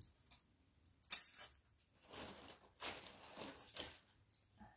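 Metal costume jewelry being handled: a sharp metallic clink about a second in with a brief ring, then two stretches of rustling and light jingling as pieces are moved about.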